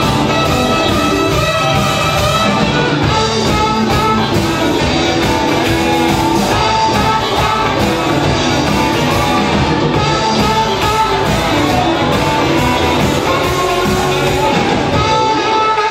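Live rock band playing loudly: saxophone, electric guitars, bass and keyboard over a steady drum beat.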